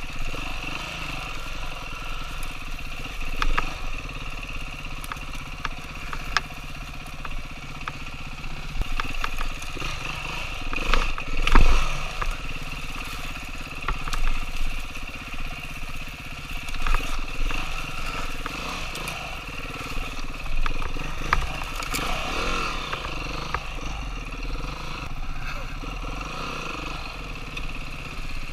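Dirt bike engine running, its pitch rising and falling now and then, with scattered sharp knocks and clatter; the loudest knock comes a little before the middle.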